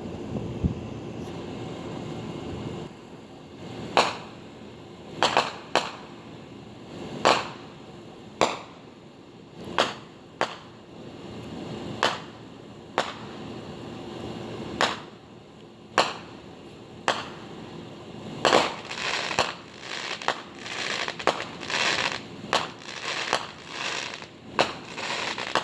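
Consumer fireworks going off: a series of sharp bangs about one a second, then a quicker run of crackling bangs from about two-thirds of the way in.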